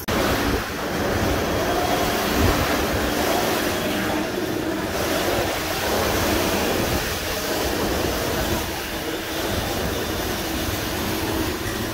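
Rubber-tyred Montreal metro train running through the station: a loud, steady rumble with a faint motor hum over it.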